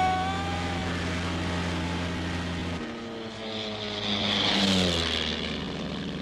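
Propeller engine of a Tiger Moth biplane in flight, droning steadily. The drone cuts off suddenly about three seconds in, and an aircraft sound follows with a falling pitch and a rising then fading rush.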